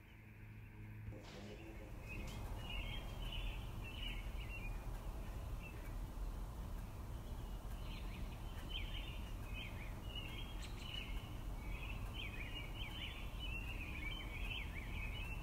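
Small birds chirping in quick, busy runs over a steady low outdoor background noise, which sets in about a second in and grows denser toward the end.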